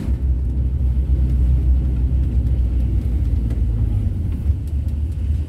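Kombi camper van driving, a steady low engine and road rumble.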